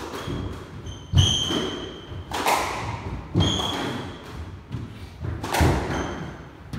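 Squash rally: the ball is struck by rackets and thuds off the court walls, four loud hits spaced irregularly about a second or two apart. Court shoes squeak sharply on the wooden floor between the hits.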